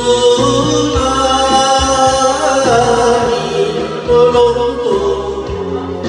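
A man singing an enka song into a karaoke microphone over a recorded backing track, his voice amplified through the room's speakers.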